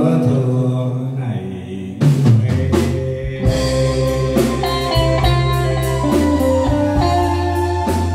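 Live band music. A held chord dies down over the first two seconds, then the drum kit comes in sharply about two seconds in, and the band, drums with electric guitar and keyboard, plays on with a steady beat.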